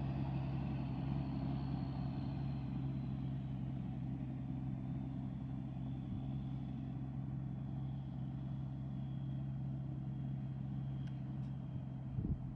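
Diesel engine running steadily at an even speed, with a faint high whine that slowly falls in pitch. There are a few short knocks near the end.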